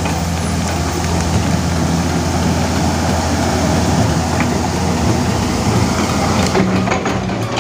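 Diesel engine of a Komatsu hydraulic excavator running steadily under working load as the machine works its boom and bucket, with a few knocks near the end.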